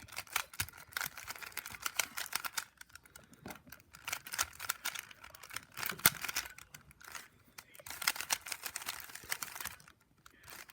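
Rubik's Cube layers being turned by hand: quick runs of plastic clicking and clacking in uneven bursts, with a few short pauses between runs of turns.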